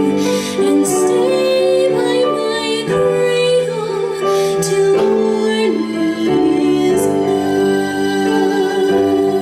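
Music with singing: a slow song with long held notes.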